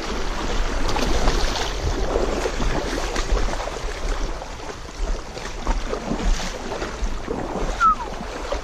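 Stream water splashing and churning during the fight with a hooked large brown trout, with wind rumbling on the microphone. A brief falling squeak near the end.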